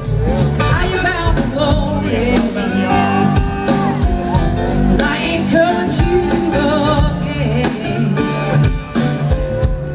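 Live blues-rock band playing: electric guitar, bass and a drum kit, with a woman singing lead over them.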